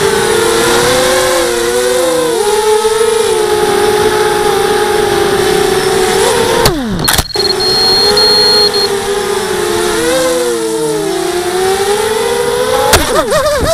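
Electric motors and propellers of a 250-size FPV racing quadcopter whining steadily, the pitch rising and falling with the throttle. About seven seconds in, the pitch drops sharply and the sound cuts out twice for a moment before picking up again. Near the end, the pitch swings quickly up and down.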